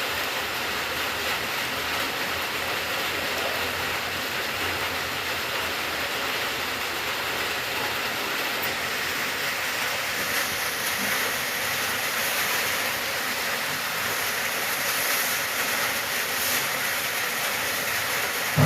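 Steady rain falling, an even hiss. A single short low thump right at the very end.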